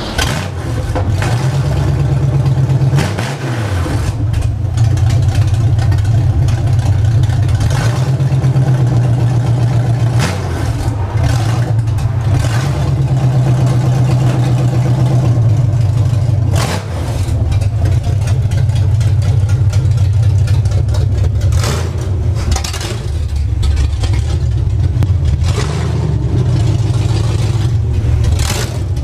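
Ford F100 pickup's engine running loud and unmuffled through open headers, with a few swells in level as it is revved, while the truck creeps forward under its own power.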